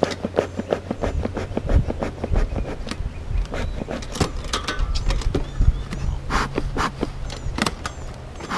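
Honey bees buzzing around the hive, with a steady low drone. Over it comes a busy run of sharp clicks and knocks as a bee smoker is handled and puffed.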